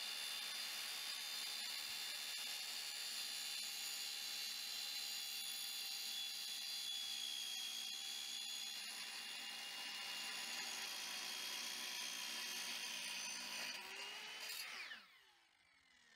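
Sliding miter saw, converted to cut steel, running with a steady high whine as its blade cuts through square steel tubing. Near the end the motor is switched off and the blade spins down, its pitch falling away.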